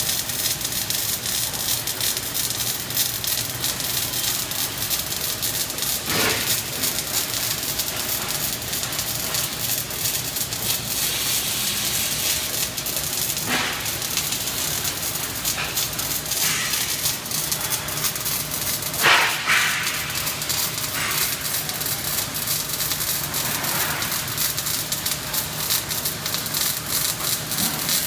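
Robotic MIG welding arc crackling and sizzling continuously as the torch lays a weld. A few louder sputters stand out, the loudest about two-thirds of the way through.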